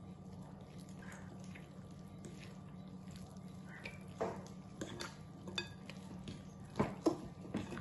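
A fork working soft dough in a glass mixing bowl, with scattered light clicks and scrapes of the fork against the glass, most of them in the second half, over a steady low hum.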